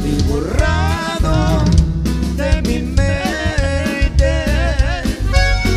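Norteño band playing live: a drum kit keeps a steady beat under bass and guitar, with a wavering melodic lead line over them.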